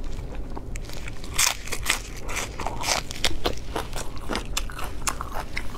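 Biting into and chewing a crisp green vegetable: many quick crunches and crackles.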